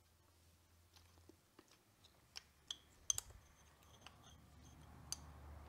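A few scattered small metallic clicks and taps of an Allen key seating in and turning the blade-clamp screws on a DeWalt DCP580 cordless planer's cutter head, loosening them to free the worn blades. The sharpest click comes a little after three seconds in.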